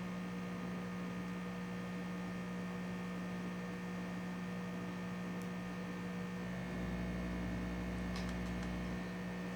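Steady electrical hum with several steady tones, and a low rumble that comes in about seven seconds in and fades again.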